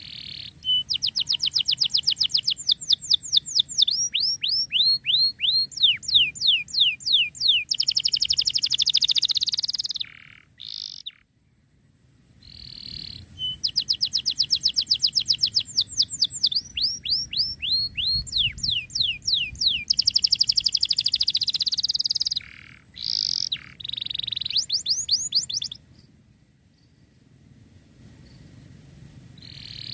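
Domestic canary singing a long, fast song of rapid trills and repeated sweeping notes in two long bouts, with a break of about two seconds after the tenth second and a stop a few seconds before the end.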